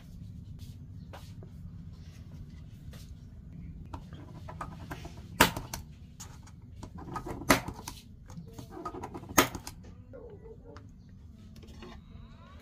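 Small tools and parts handled on a repair bench: scattered light clicks and taps over a steady low hum. About halfway through come three sharp clicks, roughly two seconds apart.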